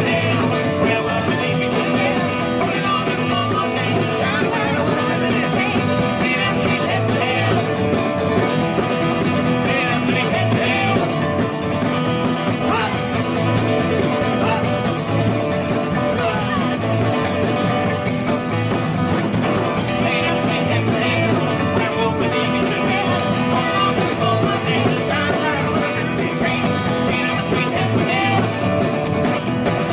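Country-rock band music with guitars and a singing voice, playing steadily throughout.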